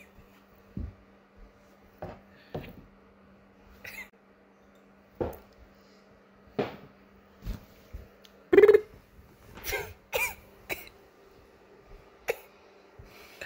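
A person's short coughs and throat noises, about a dozen brief sounds spread out over a faint steady hum, the loudest about two-thirds of the way through.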